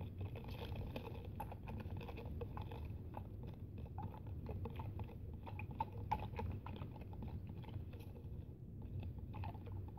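A straw stirring a drink in a plastic cup: many small, irregular clicks and scrapes as it knocks and rubs against the cup.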